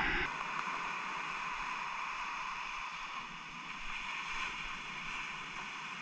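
Ocean surf washing in over the beach: a steady, even rush of water.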